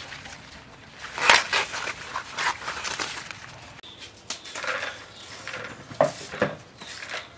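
Irregular crackling rustles and a few sharp knocks from handling ears of fresh corn, with two fuller knocks about six seconds in.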